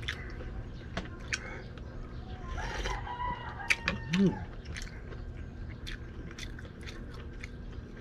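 A rooster crowing once, about three seconds in: a held call that falls away at the end. Around it are scattered clicks and smacks of eating by hand, with a spoon against a bowl.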